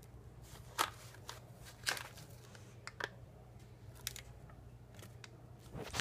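Plastic treat packets crinkling and rustling as a cat noses through them: four sharp crinkles about a second apart, with smaller rustles between, over a faint low hum.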